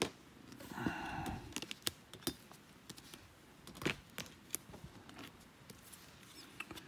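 Trading cards in clear plastic toploaders being handled and shuffled: scattered light plastic clicks and taps, the sharpest about four seconds in.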